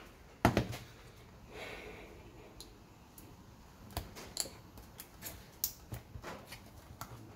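Hand tool clicking and scraping against a hard plastic battery casing as it is pried at. There is one loud click about half a second in and a short scrape just before two seconds, then a run of quicker clicks in the second half.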